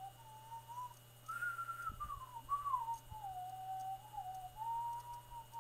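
A person whistling a wandering tune through pursed lips, the pitch gliding up and down with short breaks between phrases. A few soft low thuds come in about two and three seconds in.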